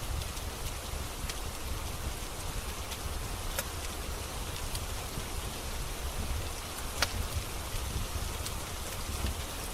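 Steady rain with a low rumble, over which a wood fire gives scattered sharp crackles and pops, the loudest about seven seconds in.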